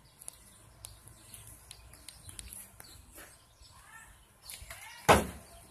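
Quiet outdoor ambience with a few faint bird chirps, then a single sharp, loud knock near the end.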